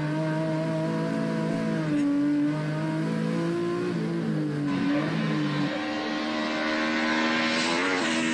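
Rally car engine running hard, its pitch stepping with gear changes and climbing through the revs in the second half, with a growing hiss alongside.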